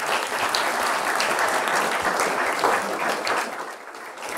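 Audience applauding, many hands clapping at once, thinning out near the end.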